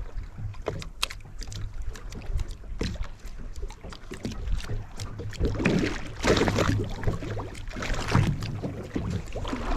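On-board sound of a fishing boat at sea: a steady low hum under scattered clicks and knocks, with rushing noise swelling twice, about five and a half seconds in and again around eight seconds.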